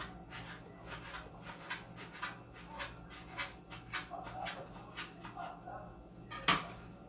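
Fresh parsley, basil and coriander being cut over a dish: a run of quick, crisp cuts, about four a second, thinning out after a few seconds, with one sharper click near the end.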